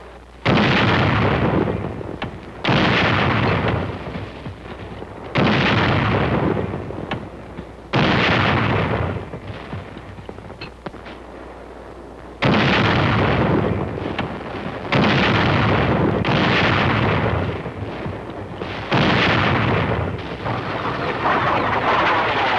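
Field artillery firing and shells bursting: about eight heavy blasts, each sudden and trailing off in a rumble over a second or two, coming every two to three seconds with a longer pause near the middle.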